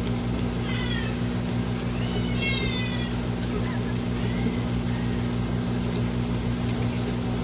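A cat meowing several times in short, high calls that bend in pitch, over the steady hum of an air fryer running.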